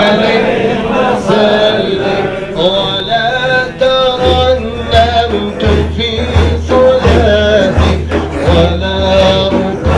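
Men's voices chanting and singing a Sufi dhikr together, a melodic line carried over the group. From about four seconds in, a deep beat sounds at a steady pace, roughly every three quarters of a second.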